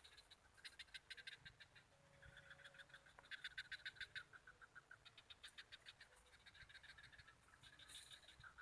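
Frogs calling faintly in repeated bouts of rapid clicking pulses, about ten a second, each bout lasting around a second.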